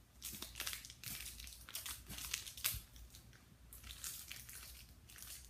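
Plastic Shopkins blind-bag packaging crinkling as it is handled and torn open, in faint irregular crackles that are busiest in the first three seconds and thin out after.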